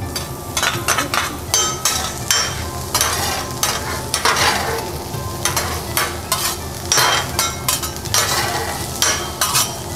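Diced vegetables sizzling on a hot steel teppanyaki griddle while metal spatulas scrape and clack against the griddle surface, two or three sharp clacks a second.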